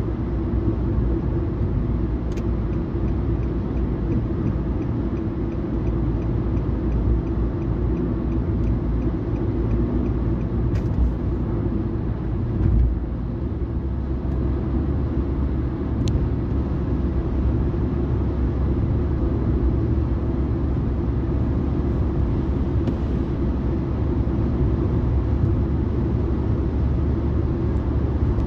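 Car cabin noise while driving at highway speed: a steady low rumble of tyres on the road and the engine, heard from inside the car. The deepest part of the rumble shifts about halfway through.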